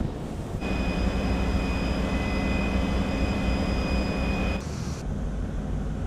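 Warship machinery running: a steady hum with a high, even whine. It cuts off about four and a half seconds in, and after a short hiss gives way to a low rumbling noise.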